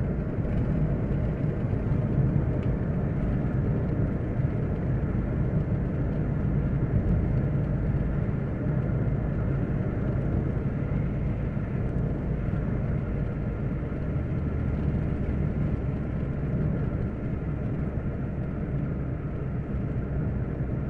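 Steady road noise inside a moving car's cabin: a low engine and tyre rumble on asphalt at cruising speed. The deepest part of the rumble eases slightly about two-thirds of the way through.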